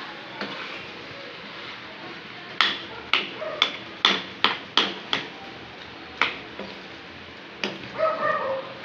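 A steel spoon stirring potatoes and capsicum in a metal kadhai, knocking sharply against the pan about nine times in irregular strokes from about two and a half seconds in. Near the end come a few short pitched calls.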